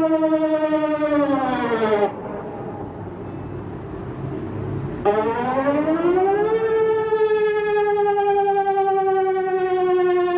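Civil defense warning siren wailing: its tone sinks and drops away about two seconds in, a few seconds of low rumbling hiss follow, then the tone rises again about five seconds in and slowly sinks. This rising-and-falling wail is the danger-alarm signal.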